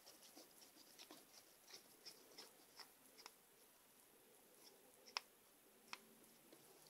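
Faint scattered clicks and light scraping of a screwdriver working small screws out of an RC car motor's metal casing, with a sharper click about five seconds in and another near six.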